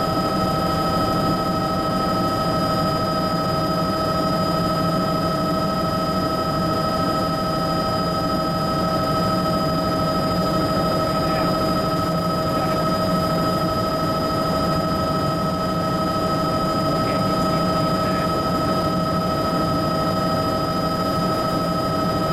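Bell JetRanger helicopter in steady cruise, heard from inside the cabin: a constant high turbine whine over the rumble of the rotor and airframe.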